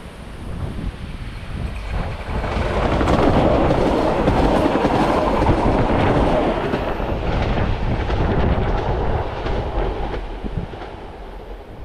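Class 460 (Siemens Desiro) electric multiple unit passing close by: a rolling rumble that swells about two seconds in, with wheels clicking over the rail joints, then fades as the train moves away near the end.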